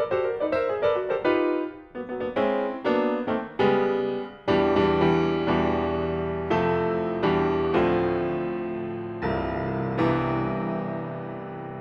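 Solo grand piano playing: quick, short notes for the first few seconds, then fuller ringing chords struck about once a second, slowly fading near the end.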